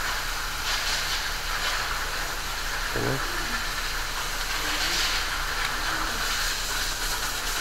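A steady hiss throughout, with the soft rubbing of paper tissue wiped around the inside of a Toyota Land Cruiser's electronic throttle body bore, cleaning out the deposits that make its throttle valve stick.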